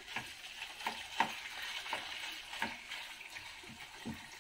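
Pork liver slices sizzling in oil in a frying pan while a utensil scrapes and turns them, in repeated short strokes about two a second over a steady hiss.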